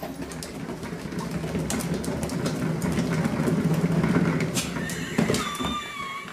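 Cat exercise wheel rumbling as a kitten runs inside it, building louder, then dying away about five seconds in. A wavering high tone comes in near the end.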